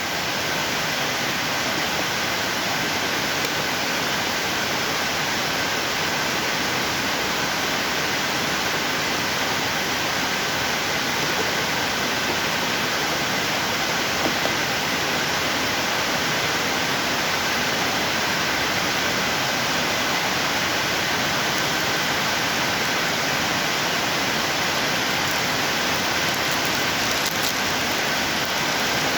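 Built-in grinder of a National Carioca NC470M coffee maker running steadily, its motor whining faintly over the hiss of beans being ground.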